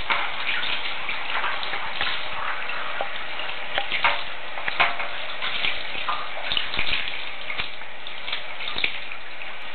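Water running into a bathtub with a steady hiss, broken by small splashes and clicks.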